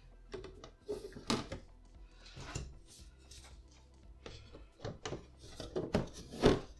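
Background music with scattered clicks and knocks of display-base panels being handled and pressed into place, the loudest knock near the end.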